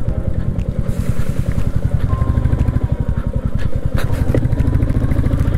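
Motorcycle engine running at low revs with a steady, rhythmic beat while the bike picks its way over a rough, wet gravel patch. A single sharp knock about four seconds in.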